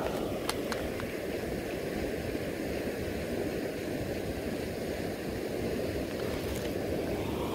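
Steady rush of a shallow river flowing, with a few faint clicks about half a second in.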